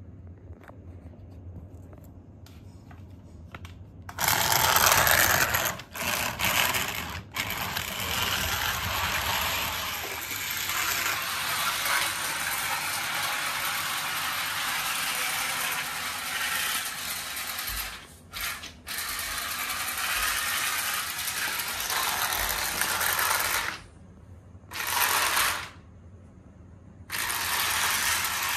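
Toy train running on plastic track: its geared motor whirring and its wheels rattling as it pulls a rake of coaches. It starts loudly about four seconds in after a few faint clicks, and drops out briefly a few times near the end.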